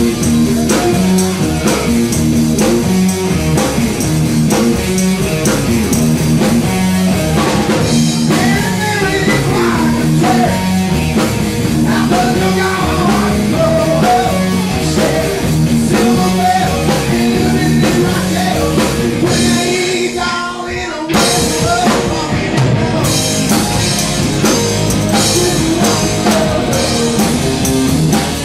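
Rock band playing with electric guitar, drum kit and vocals, with a short drop in the sound about two thirds of the way through before the band comes back in full.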